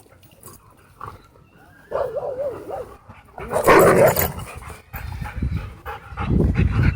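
Dogs vocalising in rough play: a wavering, whine-like call about two seconds in, then a loud, harsh bark-like outburst around four seconds in, followed by low rumbling noise near the end.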